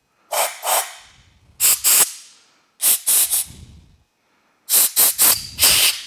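Compressed air from a trigger blow gun fired in short blasts into the passages of a Honda TRX400EX carburetor, blowing out the carb cleaner just sprayed through them. There are about ten blasts, in quick pairs and groups, with pauses between the groups.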